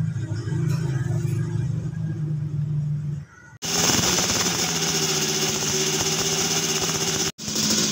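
Single-cylinder engine of an old Yamaha motorcycle idling steadily. It cuts off sharply about three and a half seconds in, then returns louder and brighter, with another brief dropout near the end.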